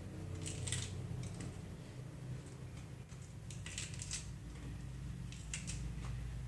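Scattered light clicks and rustles of handling in a kitchen, at irregular times, over a steady low hum.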